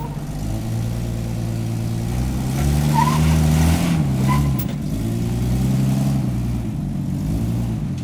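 Lifted Jeep Cherokee XJ's engine working under load as it climbs a rock ledge, revving up about two and a half seconds in, easing off after four seconds, then rising again.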